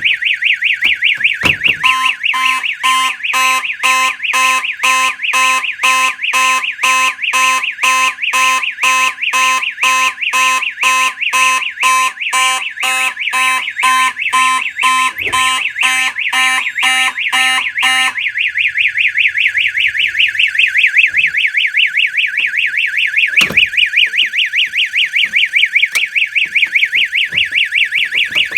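STI Stopper II cover's warning horn, a loud, high-pitched, fast warble. From about two seconds in a Simplex 2901-9838 fire alarm horn sounds over it in buzzy pulses about twice a second, then stops about 18 seconds in, leaving the stopper's warble alone. There is a single click near the end.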